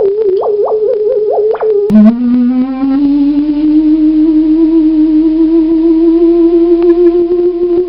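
Mini theremin playing eerie electronic tones: a wavering pitch with several quick upward yelps, then about two seconds in the pitch drops suddenly and a long held tone slowly slides upward.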